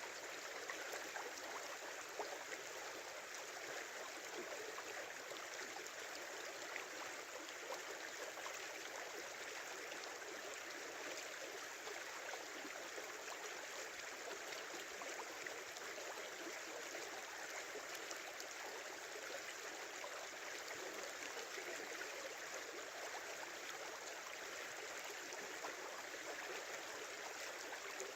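A small river flowing: a steady, unbroken rush of babbling water.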